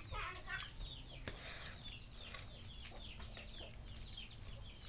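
Birds chirping in the background: many short, quickly falling calls, overlapping one another.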